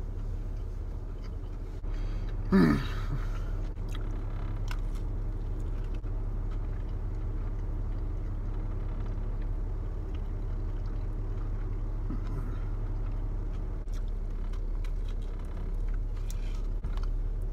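A man chewing and biting into a burger, with small mouth clicks, over a steady low hum inside a car. About two and a half seconds in, he makes one short, loud vocal sound with a sliding pitch.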